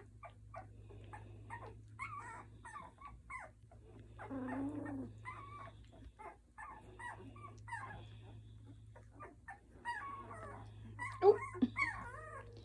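Two-week-old Doberman pinscher puppies whimpering: many short, high calls that rise and fall and overlap one another, with a louder cry about eleven seconds in.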